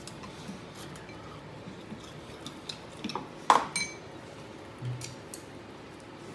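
Chopsticks and tableware clicking and clinking against a cast-iron griddle pan and dishes as food is picked off it. The clinks are scattered, with one louder, ringing clink about three and a half seconds in.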